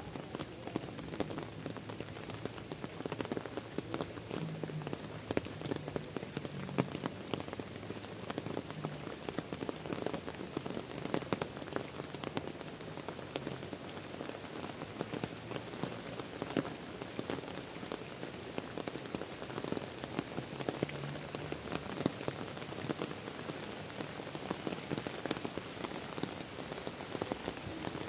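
Steady rain falling on lake water and the surrounding foliage, with single close drops tapping sharply here and there.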